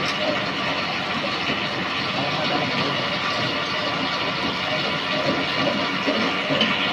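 Coconut-shell charcoal briquette extruding machine running steadily as it presses out square charcoal bars.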